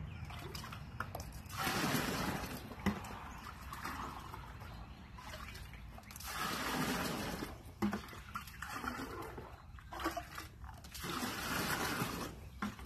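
Rainwater poured from a cut-open plastic laundry-soap jug into a plastic ice chest, in three pours a few seconds apart, each lasting about a second and a half. A couple of light knocks come between the pours.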